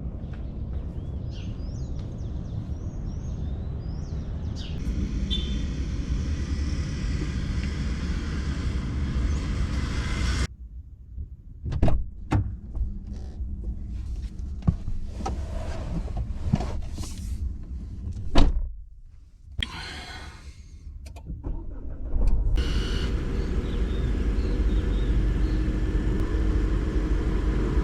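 Steady low rumble of wind and tyres from a bicycle riding a dirt trail, with birds chirping in the first few seconds. Partway through the rumble drops away for several seconds, leaving scattered sharp knocks and rattles, one of them loud; it picks up again for the last few seconds.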